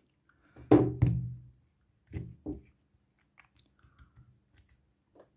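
A steel linear bearing being pressed by hand into a 3D-printed plastic X-axis carriage. After a brief voiced sound about a second in come two short knocks and then a scatter of faint clicks from the bearing and plastic part.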